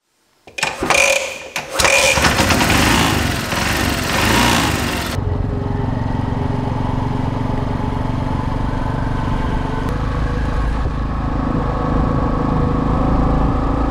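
LML 200 scooter engine: about half a second in it starts up and is revved hard and loud, then from about five seconds in it runs steadily under way with the scooter riding along.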